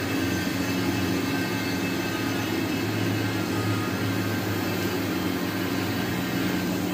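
Steady machine hum with a low drone, unchanging throughout, with no cutting or impact sounds.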